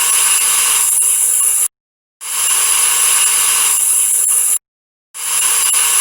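Doorbell buzzing in long blasts of about two and a half seconds with short silent breaks: one ends near two seconds in, the next runs from just after two to about four and a half seconds, and a third starts about five seconds in.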